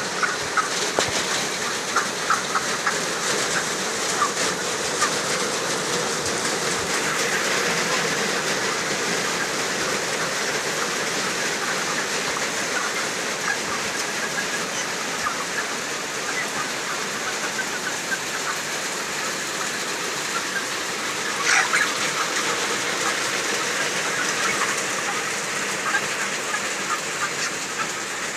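A large flock of 32-day-old broiler chickens in a poultry house, many birds chirping and calling at once in a dense, steady chatter, with one brief louder sound about two-thirds of the way through.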